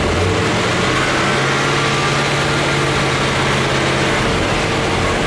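Chevrolet Corvette C4's V8 idling steadily with a cylinder misfire, its low note shifting slightly about four seconds in.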